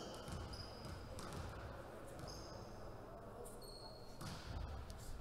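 Faint gym-floor sounds: a volleyball bouncing on the wooden floor ahead of a serve, with sneakers squeaking and low voices, and the hit of a jump serve about four seconds in.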